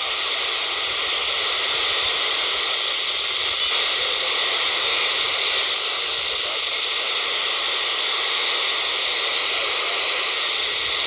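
Steady FM static hissing from a handheld scanner's speaker, squelch open on 27.780 MHz with no one transmitting.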